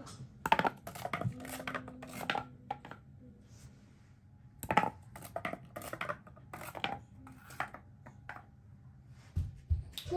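Cardboard rolling-domino pieces tumbling over one another along a hard tile floor, a quick run of light clicks and taps. There are two such runs, the second starting a little before the halfway point.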